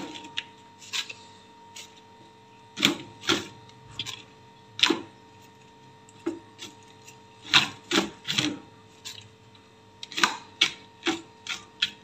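Fresh mint and coriander leaves being dropped and pushed into a plastic blender jar: irregular rustles, taps and clicks against the plastic, over a faint steady hum.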